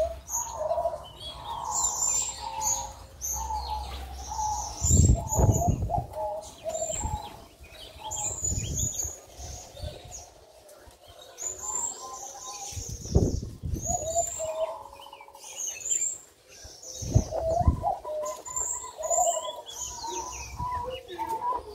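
Perkutut gong (zebra dove) cooing in deep, pulsed phrases about every four seconds, over the high chirping of small birds. Its song comes out slurred, which the owner puts down to the bird being over-excited for breeding.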